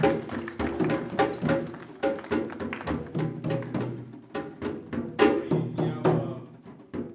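Drums played in a steady rhythm of pitched, ringing strokes, about two to three a second, thinning out near the end.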